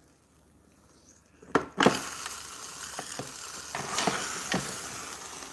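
Two sharp knocks about a second and a half in, then beaten egg with cheese and turkey bacon sizzling steadily on the hot plates of a waffle maker, with a few small pops.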